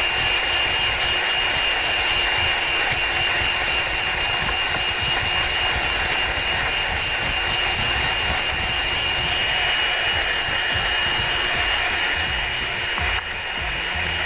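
Electric hand mixer running steadily with a high whine, its beaters whipping chantilly cream mix with mango juice in a glass bowl.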